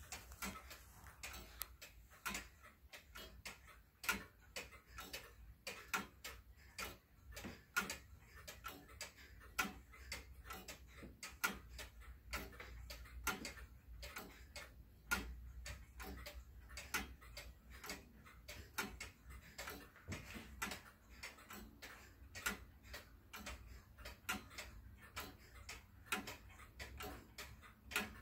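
An 1862 Black Forest carillon tall-case clock's movement ticking steadily and faintly; its bells are not ringing.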